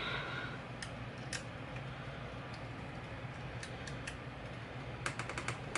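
Light clicks of small tools and screws as scope ring cap screws are tightened by hand, a few scattered ones and then a quick run of clicks near the end, over a steady low hum.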